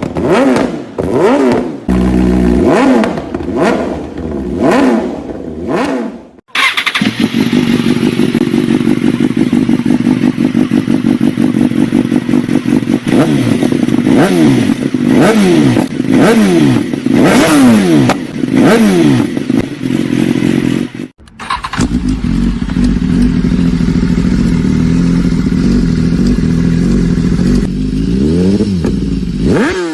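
BMW S1000RR inline-four sportbike engine running through aftermarket exhausts: quick throttle blips, then idling with bursts of revs. It is a string of separate clips with abrupt cuts about six seconds in and again about twenty-one seconds in.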